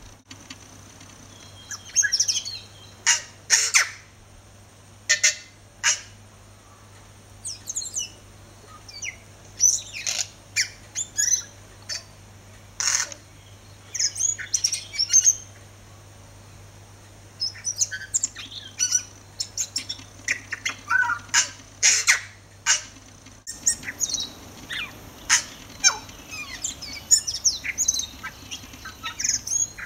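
Tui singing: broken phrases of high whistled notes and pitch glides mixed with sharp clicks, with short pauses between phrases.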